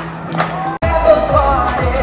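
Pop dance music over loudspeakers with handclaps on the beat. Under a second in, the track cuts out abruptly and a new song starts, with a steady kick drum and a singer.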